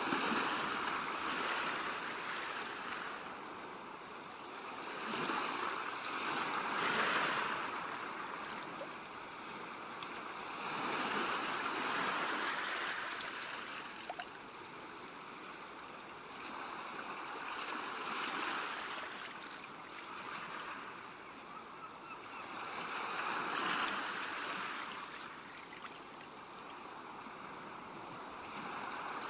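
Ocean waves breaking and washing up, each surge of surf swelling and fading, about every five to six seconds.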